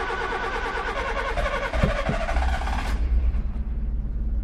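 Honda City Pro T engine being cranked by its starter motor and catching about two seconds in; the starter stops soon after and the cold engine runs on at a steady idle.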